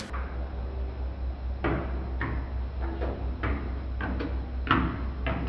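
A steady low hum with a series of irregular sharp knocks and clicks, about nine of them.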